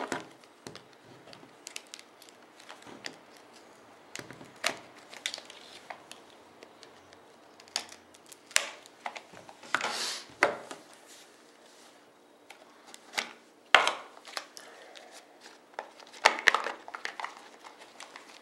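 Handling noises from a sealed trading-card box being worked open by hand: scattered crinkles, taps and scrapes, with a few sharper knocks of the box against a wooden table.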